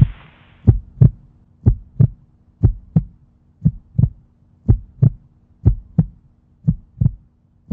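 Human heartbeat, a steady lub-dub of paired thumps about once a second, over a faint steady hum.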